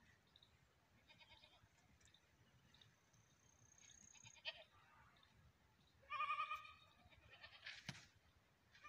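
Near silence broken by a few faint, short animal calls, the clearest about six seconds in and another near the end.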